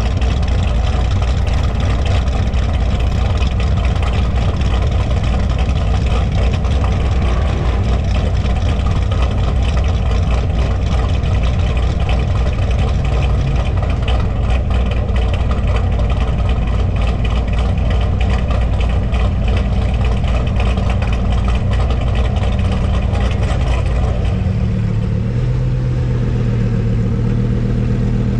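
Cammed LS3 V8 idling loudly and steadily close to the microphone. About 24 s in the sound settles into a smoother, steadier low hum.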